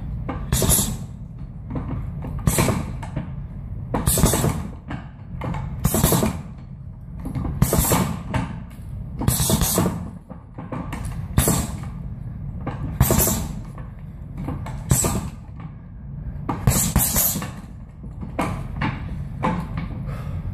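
Gloved punches landing on a hanging round heavy bag in short combinations, a burst every second or two, over a steady low rumble.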